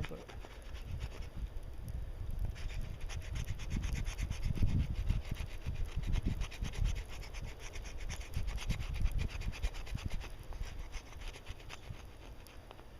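Rapid scratching and scraping on a stick of resin-rich fatwood, many quick strokes starting about two and a half seconds in, over a low rumble of wind on the microphone.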